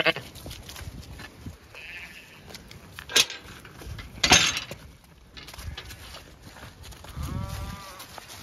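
Zwartbles sheep moving about, with one wavering bleat near the end. A metal gate gives two sharp clanks a few seconds in, about a second apart, as it is handled.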